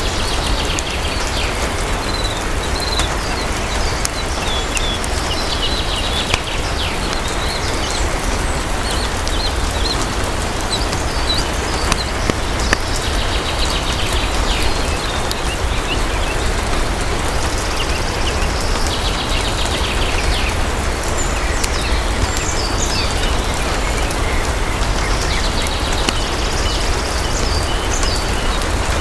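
Steady heavy rain with a deep low rumble underneath. Short bursts of high bird chirps and trills come every few seconds over the rain.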